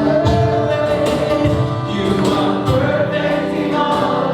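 Worship song: several voices singing over instrumental backing with a steady beat.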